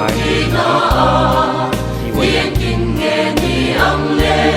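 Background gospel music: a choir singing over a steady beat with bass and percussion.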